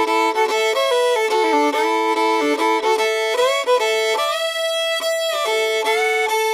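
Fiddle playing a country-song melody, often two bowed notes at once, as the instrumental opening of the song.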